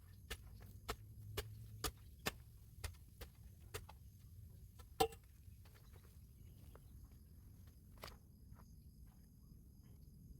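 A run of sharp knocks about two a second, then a single louder knock about five seconds in, followed by a few scattered fainter ticks.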